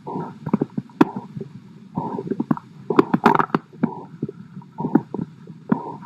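Recorded heart sounds heard through a stethoscope: sharp beats about once a second, each with a rough whooshing noise, a heart murmur.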